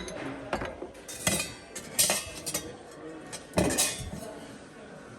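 Kitchenware being handled: several sharp clinks and clatters of utensils and dishes knocking together, the loudest about two seconds in and again near the middle-end, then dying away.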